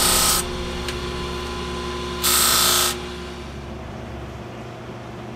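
Bench grinder motor humming as a steel knife blade is pressed against the spinning wheel in two brief grinding passes, one right at the start and one about two seconds in, each a harsh hiss. The hum fades in the second half.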